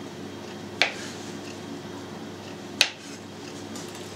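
Kitchen knife chopping through soft dough and striking the cutting board: two sharp knocks about two seconds apart, over a faint steady hum.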